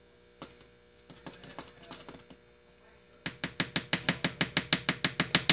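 Metal spoon tapping and scraping inside a plastic tub of food: a few scattered clicks, then from about three seconds in a fast, even run of about eight clicks a second as the spoon chops at the food to break off a chunk.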